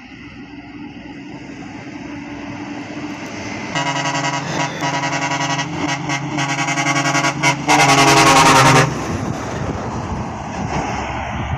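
Semi-truck air horn blaring in a string of long blasts with short breaks, the last and loudest about a second long, over the rising noise of the approaching truck; the truck noise carries on after the horn stops.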